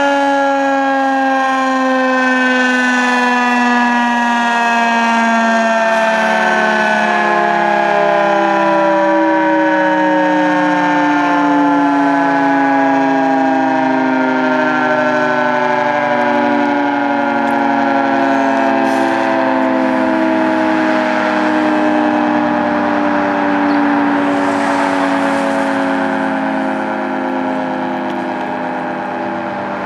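Federal 3T22 three-phase outdoor warning siren, with a blocked 10-port air intake, winding down at the end of its one-minute test alert. Several tones fall slowly and steadily in pitch together.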